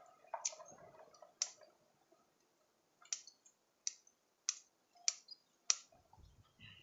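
Bonsai pruning scissors snipping thin twigs off a water jasmine (anting putri) tree: seven sharp, short snips, two in the first second and a half, then a pause, then five in a steady run about 0.6 s apart.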